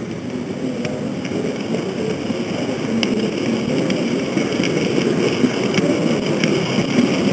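H0 model train running, heard from a camera riding on it: a steady, dense drive and running noise from the model's motor, gears and wheels, growing a little louder, with a few faint clicks as the wheels cross rail joints and points.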